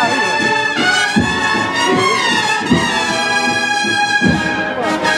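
Brass band playing a slow processional march, with long held notes from trumpets and trombones.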